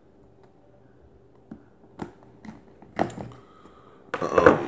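Latches of a hard plastic pistol case clicking several times, about one every half second, then a louder clatter of the case being handled just before the end.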